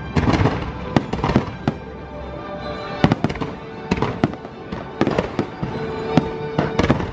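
Aerial fireworks going off in a rapid, irregular series of sharp bangs and crackles, with show music playing underneath.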